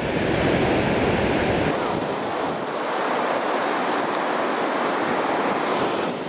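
Surf breaking and washing on a sandy beach, a steady rush, with some wind on the microphone that eases about two and a half seconds in.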